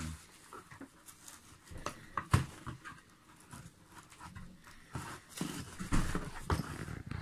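Cardboard mailing box and packaging being handled: irregular rustling and scraping with a few short knocks, the sharpest about two and a half seconds in and a busier stretch near the end.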